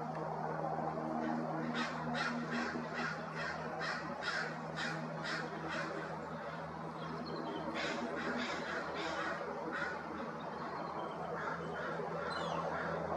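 Crows cawing in two rapid series of harsh calls, about three a second, over a steady low hum.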